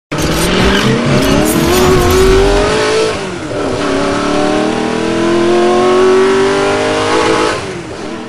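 Car engine accelerating hard through the gears: the pitch rises for about three seconds, drops sharply at a gear change, rises again, then fades out near the end.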